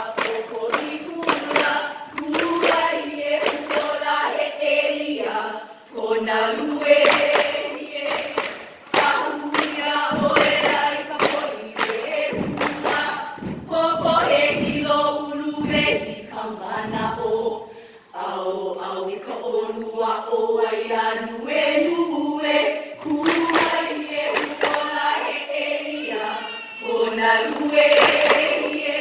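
A group of women chanting a Hawaiian hula chant in unison, with hollow, regular thumps of ipu heke double-gourd drums struck by hand and pounded on the stage floor.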